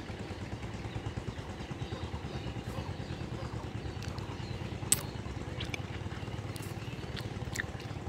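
An engine running steadily out of sight, a low even rumble, with one sharp click about five seconds in.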